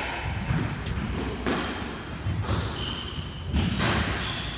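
Squash rally: the ball is smacked by rackets and off the court walls in several sharp hits about a second apart, with sneakers squeaking and footfalls thudding on the wooden floor.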